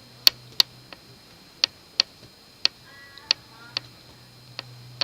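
Fingers tapping on a person's back: chest percussion over the lung fields, about nine sharp taps, mostly in quick pairs. The taps sound resonant and alike over all fields, a sign of normal air-filled lungs.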